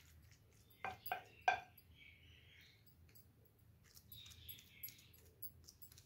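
A wooden spoon knocks three times against a glass dish about a second in, with a short glassy ring, then scrapes faintly and softly through thick, sticky roti halwa.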